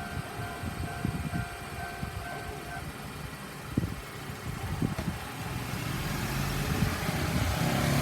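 Low-pitched electronic level-crossing warning bell ringing steadily, stopping about three seconds in. Then a road vehicle's engine and tyres approach, growing louder toward the end.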